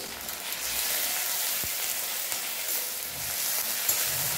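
Fried onions, ginger-garlic paste and green chillies sizzling steadily in hot oil in a metal kadai while being stirred, with two sharp clicks. This is the masala being sautéed (kosha) before the tomato goes in.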